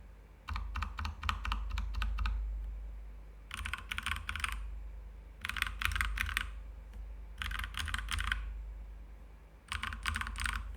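Keychron K2 mechanical keyboard with tactile Gateron Brown switches, stock and unmodded, typed on in five short runs of quick keystrokes with pauses between them.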